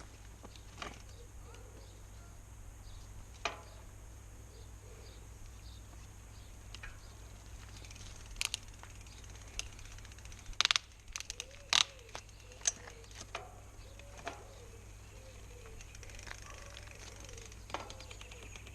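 Scattered sharp clicks and taps from work on a bicycle's rear end, the gear shifter and rear derailleur clicking as the chain is moved down onto the smallest cassette cog, with a quick cluster of clicks about two thirds of the way through.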